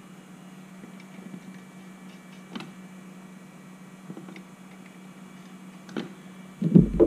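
Light scattered clicks of hands handling an ATV's front wheel hub and tyre over a faint steady low hum. About six and a half seconds in, a run of heavy low thumps begins.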